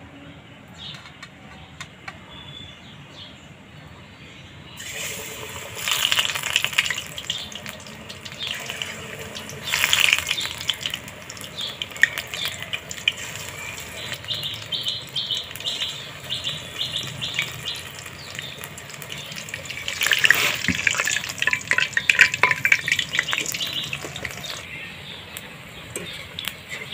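Besan-battered greens fritters sizzling and crackling in hot oil in a kadai. Quiet at first; the sizzle starts about five seconds in and flares up loudly as fresh batches go into the oil, around six, ten and twenty seconds in.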